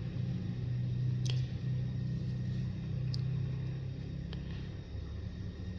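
A steady low hum, with three faint clicks of a pen working on paper.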